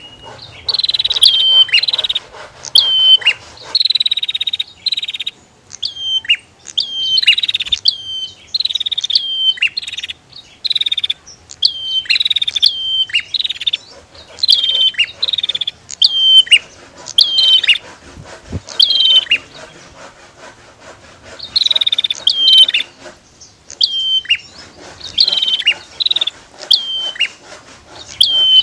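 Prinias (prenjak) calling over and over. Each call is a short high note that ends in a quick downward slide, repeated about once a second in runs with brief pauses.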